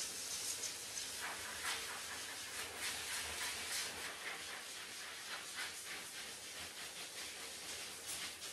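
High-velocity dog dryer blowing air through a hose nozzle into a dog's thick coat: a steady rushing hiss that keeps surging and easing as the nozzle works through the fur.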